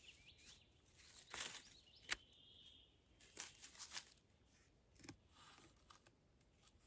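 Quiet rustling and a few small clicks of hands wrapping and pulling twine around a wooden stick frame, with a faint bird trill at the start and again about two seconds in.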